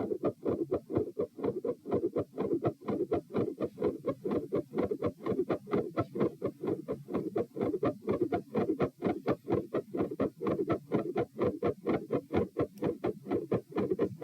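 Fast heartbeat recorded at the chest, about 132 beats a minute, an even rapid run of lub-dub thumps. The recorder describes it as a third heart sound with a fixed split second heart sound and a murmur.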